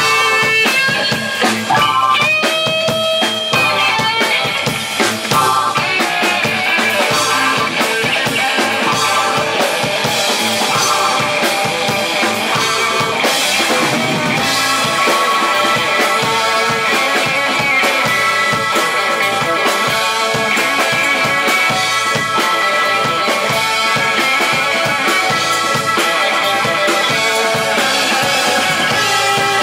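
Live band playing an upbeat mod-jazz groove, with a drum kit, electric guitars and keyboards.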